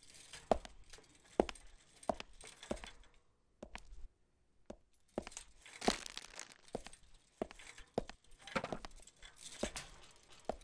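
Shopping cart being pushed along: scattered sharp knocks and short rattles, about one or two a second, with a quiet pause about three to five seconds in.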